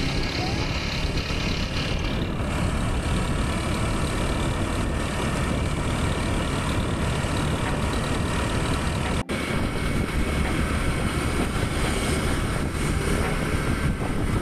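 Motorcycle riding noise: rushing wind over the microphone with engine and road noise underneath, steady and dense throughout, with a split-second break about nine seconds in.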